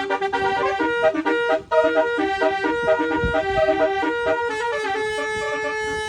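Twelve-trumpet telolet bus air horn playing a tune: held notes stepping up and down, several trumpets sounding together in chords, ending on a longer held note near the end.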